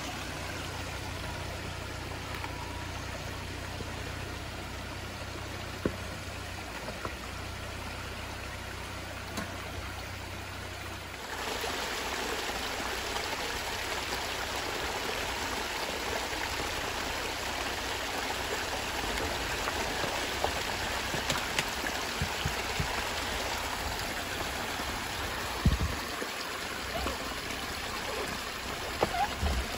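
Steady rush of water running over rocks in a small trail-side stream, with a low engine hum from the crawling Jeep Gladiator under it until about eleven seconds in. After that the water is louder, and a few sharp knocks come near the end.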